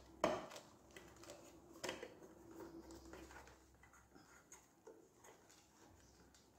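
Light clicks and knocks of hands working a flexible rubber intake boot onto a motorcycle airbox, scattered and irregular, the loudest about a quarter second in and another near two seconds in.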